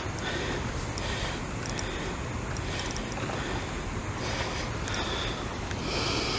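Steady rushing noise of wind on the microphone and moving water, with brief splashy hisses every second or so.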